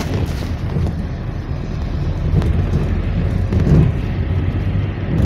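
Low, steady rumble of a GAZelle Next minibus driving, heard from inside the passenger cabin: engine and tyre-on-road noise, swelling a little past the middle.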